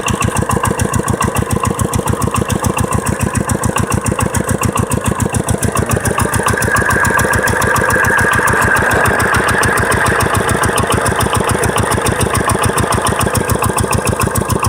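Single-cylinder 'dompeng' diesel engine running steadily while driving a water pump, with a fast, even knocking beat. About six seconds in, a higher hiss rises over it and eases off again by about ten seconds.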